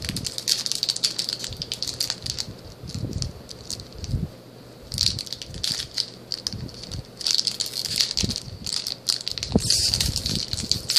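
Foil trading-card booster pack crinkling and rustling as it is handled and opened, in crackly bursts with a short lull about four seconds in.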